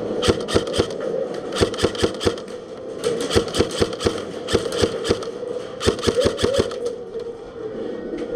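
Airsoft electric rifle (AEG) firing on semi-automatic: strings of sharp, quick shots, several per second, in five bursts with short pauses between.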